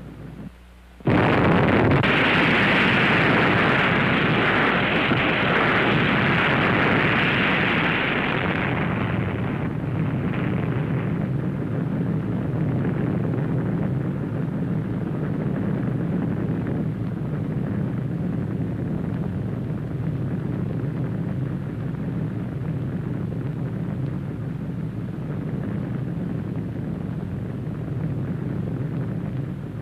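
Explosion sound on the soundtrack of underwater atomic bomb test footage: a sudden loud blast about a second in, then a hissing rush that eases after about nine seconds into a steady low rumble.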